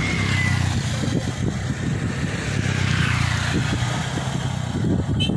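Maxxi Bimo 102 combine harvester's engine idling steadily, a constant low hum.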